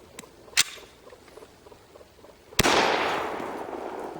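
Two sharp clicks, then about two and a half seconds in a single 9mm shot from a Ruger P95 pistol with a long echo trailing off. The pistol is malfunctioning and failing to chamber the next round.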